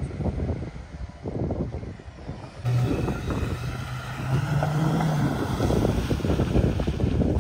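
Off-road 4x4's engine running, with wind buffeting the microphone. About two and a half seconds in the sound gets louder and a steady low engine drone comes in, rising a little in pitch around the middle.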